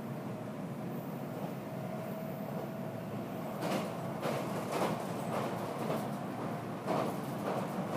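Running noise of a passenger train heard from inside the carriage: a steady rumble of wheels on rail. About halfway through, a series of sharp clacks sets in as the train crosses a river bridge.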